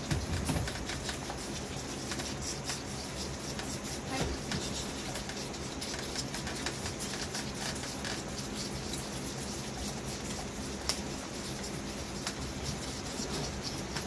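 A group of whitetail fawns suckling from bottles in a feeding rack: a dense, steady run of small sucking clicks and smacks.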